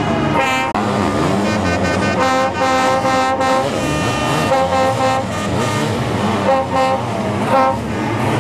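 Sidecar motocross outfits' engines revving hard as several machines race past, holding a high steady pitch for stretches of up to about a second, then breaking off and coming back, over a rough low rumble.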